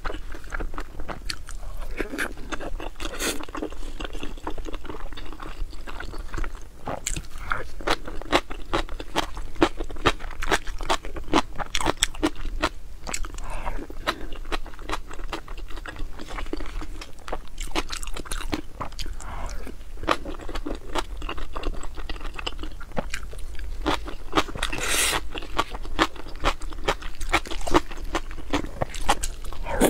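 Close-miked chewing: a person eating with a full mouth, a continuous dense run of small wet mouth clicks and crunches.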